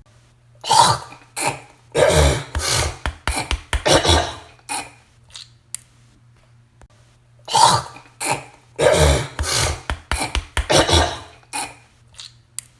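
A woman clearing her throat and hawking up phlegm, then spitting, in two rounds a few seconds apart. Each round opens with a short, sharp throat-clear followed by a longer rasping hawk.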